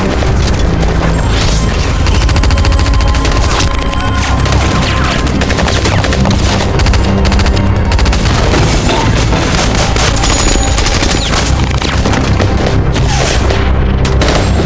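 Film battle soundtrack: rapid bursts of automatic gunfire and heavy booming explosions, the explosions being incoming mortar rounds, under a dramatic orchestral score.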